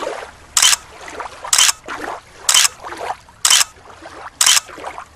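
Crab sound effect: a short, sharp burst of hissing noise repeating about once a second, five times, with fainter noise between.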